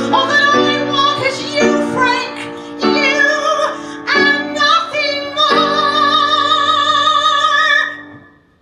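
A woman singing a musical-theatre song with band accompaniment, ending on a long held note with vibrato that stops shortly before the end.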